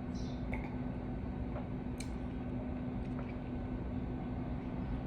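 Steady low hum with a few faint, short clicks, the sharpest about two seconds in.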